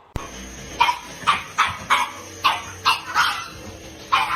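A dog barking repeatedly: about seven sharp barks in quick succession, then a short pause and one more bark near the end.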